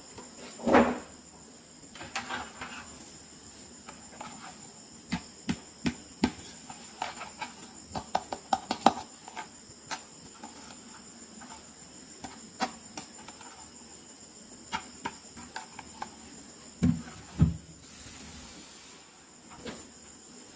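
Handling noise from plastic toys: scattered small clicks and taps as a plastic toy keyboard is picked up, held and set down on a mat, with two dull thumps about 17 seconds in. A faint steady high-pitched tone runs underneath.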